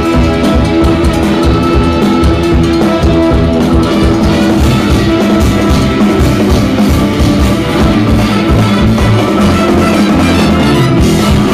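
Live jazz-fusion band playing loudly and continuously: drum kit, electric guitar and bass, and keyboards, with a horn section of saxophone and trumpets.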